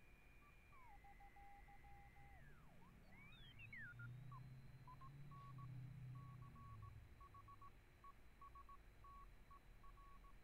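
Morse code (CW) signals heard faintly through a one-transistor JFET regenerative receiver on 40 meters. Whistling tones slide down in pitch as the dial is tuned, then a station's keyed Morse code comes in steadily over the second half, with a steady high-pitched whistle from another carrier behind it.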